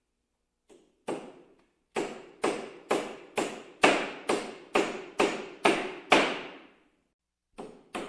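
Hammer blows: after a light tap and a single strike, a steady run of about a dozen blows at about two a second, a short pause, then more blows near the end.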